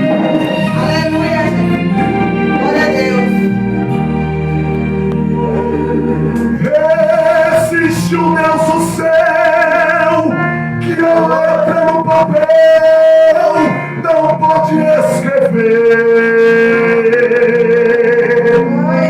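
Gospel song: a man singing long held notes over instrumental accompaniment.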